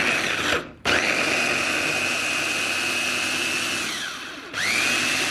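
Electric mini food chopper grinding peeled garlic cloves in coconut oil, run in pulses. A brief run cuts off under a second in, then a longer run of about three seconds with a steady high whine winds down in pitch. It starts again with a rising whine near the end.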